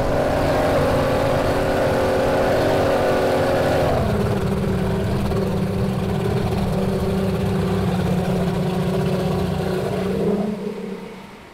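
Twin Mercury 2.5 Race Offshore outboards, two-stroke V6s, running at speed. The engine note steps down in pitch about four seconds in, holds steady, then fades away near the end.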